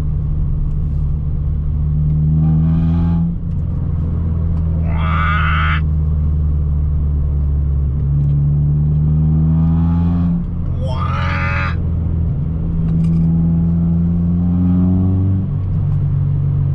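Honda Civic Type R EP3's 2.0-litre four-cylinder engine running through a decat manifold and Spoon N1 back box, heard from inside the car while driving. The engine note climbs three times and drops back after each climb. Two short higher-pitched sounds come in briefly, about five and eleven seconds in.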